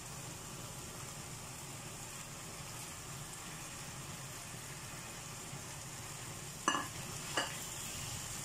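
Beef steaks, potatoes and carrots sizzling steadily in a frying pan, with two short clinks about two-thirds of a second apart near the end.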